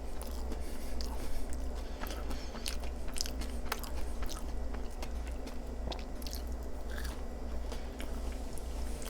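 Close-miked chewing and biting of food, made up of many short sharp clicks in an irregular stream, over a low steady hum.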